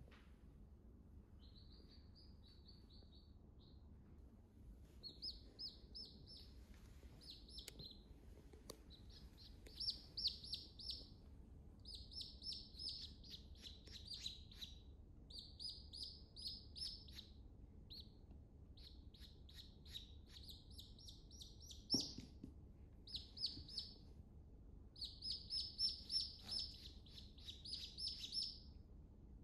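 Baby chicks peeping: rapid runs of short, high cheeps that start about a second and a half in and go on in bursts with brief gaps. A single sharp click stands out about two-thirds of the way through.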